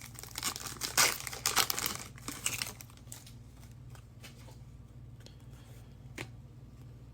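An Optic football card pack's wrapper being torn open and crinkled for the first few seconds, then quieter, with a couple of soft clicks.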